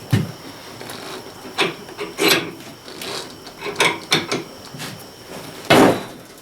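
Tractor tyre being levered off its rim with a hand tool: a knock at the start, then several short, uneven scraping rubs of rubber and metal, the loudest near the end.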